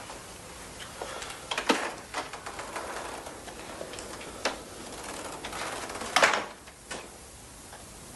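A few clicks and knocks as a door is handled and opened, then the door shuts with a bang about six seconds in.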